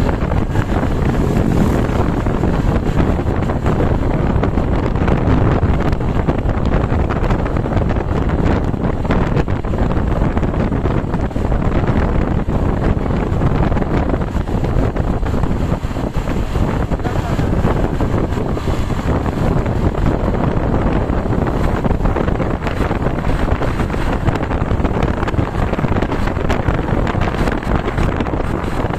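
Loud, steady wind buffeting the microphone, mixed with the rumble of vehicles on the road.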